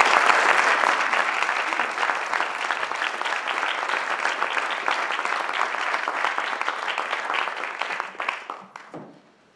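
Audience applauding, the clapping fading out about eight or nine seconds in.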